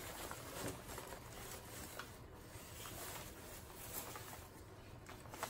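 Newspaper and shredded paper packing rustling and crinkling as hands pull them out of a cardboard shipping box, with small scattered crackles.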